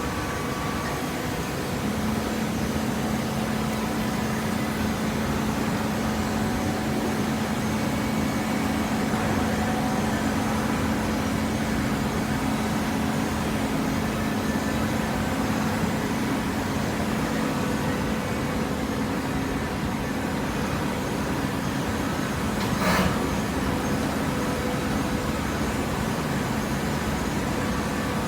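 Autofeeder hydraulic baler for corrugated boxes running: steady machine noise with a humming tone that sets in about two seconds in, and one short knock toward the end.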